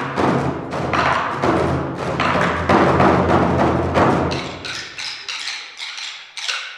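Korean buk drums struck over a backing music track, about two hits a second, then lighter, quicker strikes that fade away near the end.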